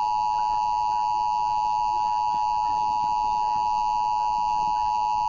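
Emergency Alert System attention signal: a loud, steady two-tone alert sound held at one pitch, the tone that precedes a broadcast weather warning.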